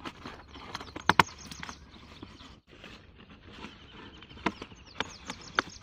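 An old coffee bag crinkling and rustling as it is pulled over a guava on the branch. There are sharp crackles about a second in and several more near the end.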